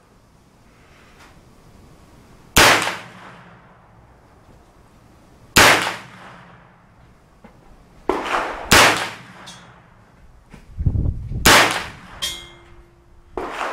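CMMG MK9T 9mm AR-15-style carbine fired in slow single shots, five loud cracks about three seconds apart, each trailing off in a short echo. Two fainter shots fall between them, and a brief metallic ring sounds near the end.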